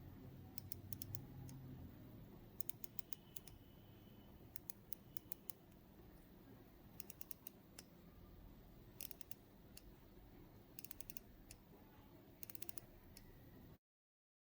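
Crown of a Tissot Heritage Petite Seconde being hand-wound: the ETA 6498-1 manual-wind movement's winding ratchet gives quick clusters of faint sharp clicks, one cluster roughly every second as the crown is turned. The sound cuts off abruptly near the end.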